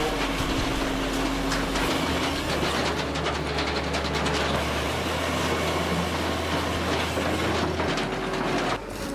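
Heavy wood-processing machinery running, a dense clattering and knocking mechanical noise that changes abruptly near the end.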